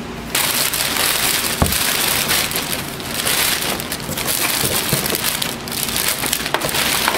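Thick clear plastic packing bag crinkling loudly as hands pull it open and push it down around the printer, with a single knock about one and a half seconds in.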